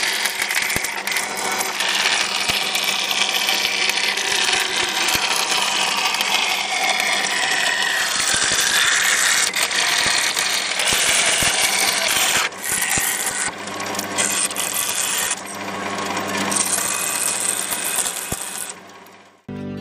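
A hand-held power tool running steadily against a workpiece, with a dense scraping noise and many small clicks and rattles; it stops shortly before the end.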